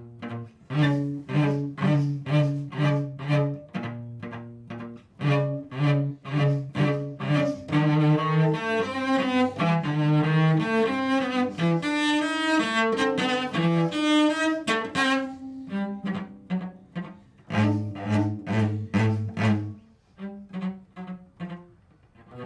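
Solo cello bowed, playing short detached notes repeated at roughly three a second, then a fast run of notes climbing into the upper register through the middle, and repeated low notes again near the end.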